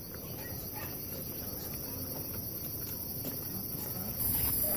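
Night insects, crickets, chirring steadily, with a few faint footsteps on wooden boardwalk planks. The insect sound gets louder about four seconds in.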